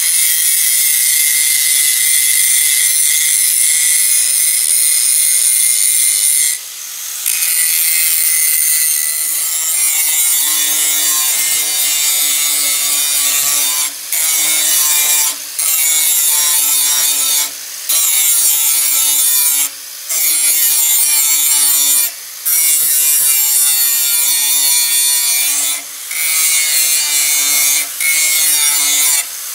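Handheld angle grinder grinding a forged steel dagger blade: a loud, steady, high-pitched grinding, broken by short breaks as the disc comes off the steel, about every two seconds in the second half.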